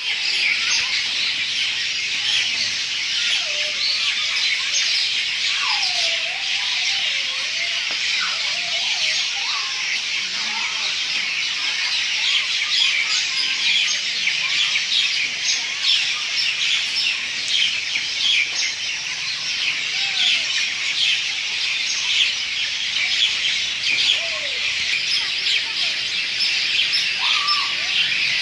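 A dense chorus of many birds calling at once, a continuous mass of overlapping high chirps. Now and then a lower, swooping call stands out, several around a quarter of the way in and a few more near the end.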